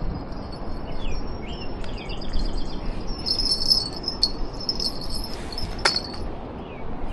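Outdoor ambience: birds chirping and an insect's steady high-pitched trill, over a low rumbling hiss, with one sharp click about six seconds in.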